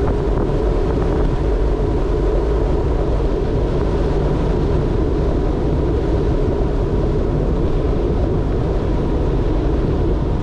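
Steady rolling noise of tyres on a coarse chip-seal road, with wind on the microphone from forward travel. A faint steady tone runs through it.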